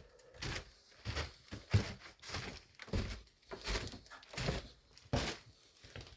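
Footsteps of a person climbing: a steady series of dull thuds, roughly three every two seconds.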